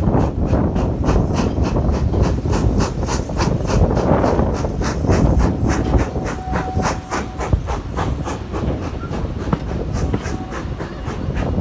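Steam-hauled heritage train running at speed, heard from a carriage window: a steady, rapid run of regular beats, about four or five a second, over a low rumble.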